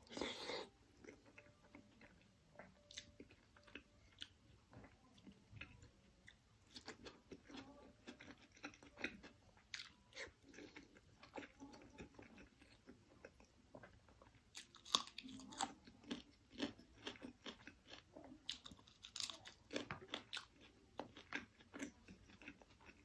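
Close-miked eating sounds of a mouthful of rice and chicken curry being chewed by hand-feeding: wet mouth clicks and smacks throughout, with louder bursts of crisp, crunchy bites about two-thirds of the way in and again near the end.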